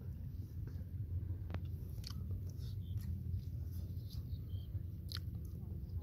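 A person chewing and biting into a grilled egg close to the microphone, with small wet mouth clicks scattered through. A steady low rumble runs underneath.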